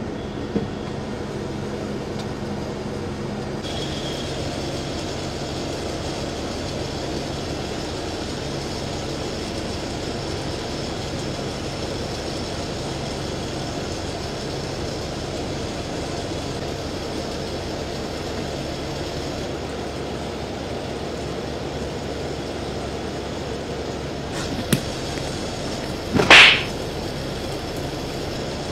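Steady rumble and hum of a bus cabin while the bus is moving. About two seconds before the end comes a short, loud swish, just after a faint click.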